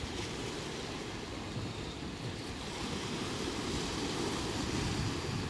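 Sea waves washing steadily over a rocky shore, with wind rumbling on the microphone.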